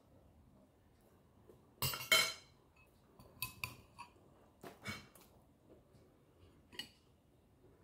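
A metal spoon clinking and scraping against ceramic dishes. The loudest clinks come in a quick cluster about two seconds in, followed by scattered lighter taps.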